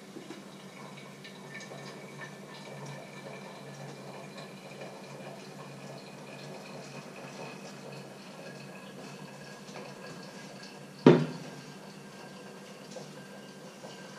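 Hot water poured slowly from an enamel kettle into a coffee filter cone, a faint steady trickle. About eleven seconds in comes a single sharp clank as the kettle is set down on the hob.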